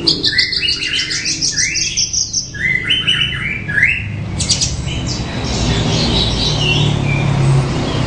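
Horsfield's bushlark (branjangan) singing: quick runs of repeated chirping notes for about four seconds, then fainter, scattered notes. A low rumble comes up underneath in the second half.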